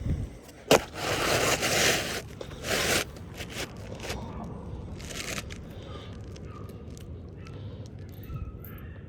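Scraping and rustling of something being handled, with a sharp click just under a second in and the loudest scraping in the first two seconds.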